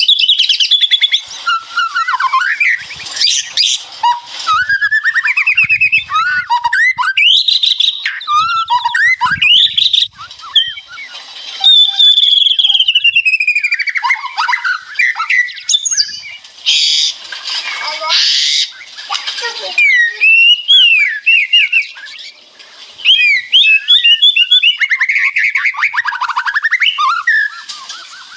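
White-rumped shama singing a fast, varied song: a steady stream of whistled glides and slurs broken by harsh, crackling rattles, the 'ngeretek' (kretekan) phrases prized in murai batu song.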